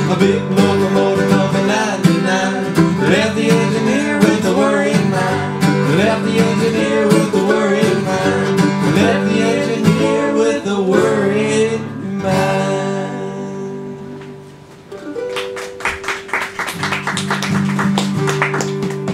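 Acoustic guitar and mandolin playing a lively folk instrumental that rings out and fades about twelve seconds in. Then a harmonica comes in over the guitar with a steady chugging rhythm of about four beats a second.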